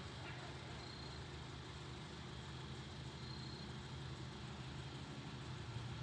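Steady low engine hum, like a vehicle idling.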